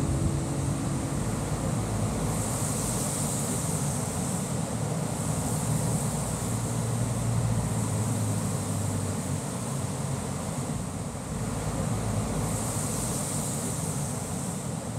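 Steady low vehicle rumble with a constant hiss over it.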